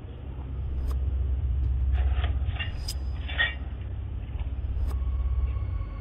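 Low, steady rumble of a car engine running in the street, heard through a doorbell camera's microphone, with faint voices about two and three and a half seconds in and a short tick about every two seconds.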